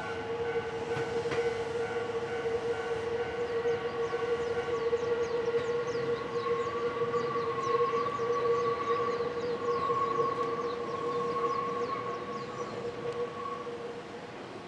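Wheels of a Nankai 2300-series electric train squealing on a tight curve: a steady, high-pitched tone with a second, higher tone wavering above it, fading near the end as the train pulls away.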